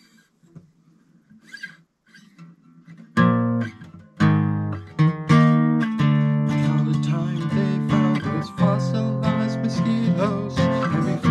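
Strummed chords on a Masterbilt steel-string acoustic guitar, starting sharply about three seconds in after a quiet start and carrying on in a steady strumming rhythm.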